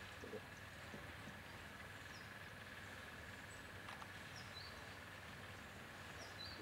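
Faint outdoor wildlife ambience: a steady high insect-like drone with short high chirps every second or so, and one faint click about four seconds in.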